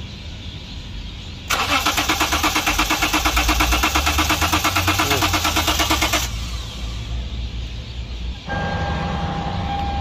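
Starter cranking the Lexus IS300's engine for about five seconds in a fast, even rhythm and stopping without the engine catching: a crank-no-start with no fuel pressure reaching the engine. A steady electronic tone sounds near the end.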